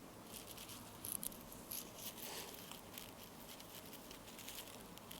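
Faint rustling and crinkling, scratchy and irregular, with a couple of slightly louder crackles about a second in.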